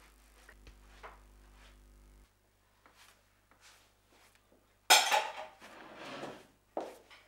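Dishes and cutlery clattering: a few light clinks, then a sudden loud clatter about five seconds in that dies away over a second or so.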